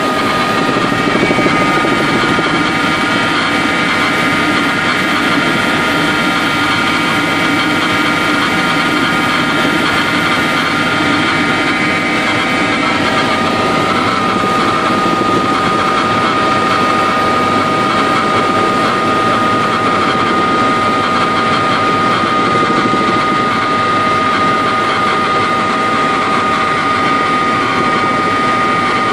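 Tour helicopter in flight heard from inside the cabin: a constant engine and rotor rumble with a steady high-pitched whine over it.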